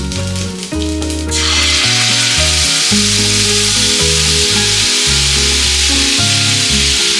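Food sizzling in hot oil in a pan: a loud steady sizzle that comes in suddenly about a second and a half in, after some light clicking, over background music.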